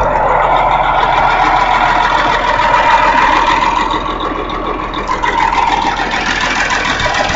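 A large hay grinder running, its engine and mill making a loud, steady mechanical din.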